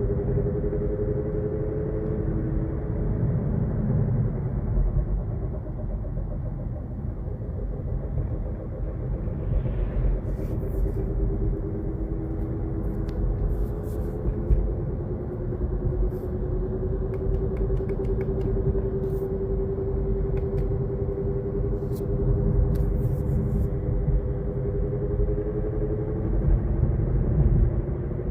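2023 Kia Niro EV electric drive unit whining while driving: a steady tone that slowly drifts up and down in pitch with road speed, over a low road rumble. It is an abnormal drive-unit noise that replacing the tyres and axle shafts did not cure.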